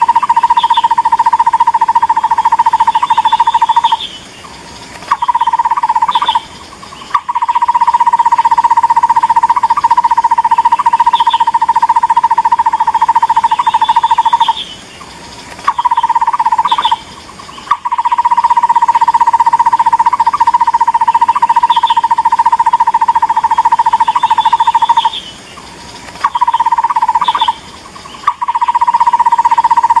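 Takur bukit barbet calling: a long run of rapid notes at one pitch, broken by short pauses every few seconds, with a few brief higher notes between the runs. A recorded call of the kind used to lure the bird.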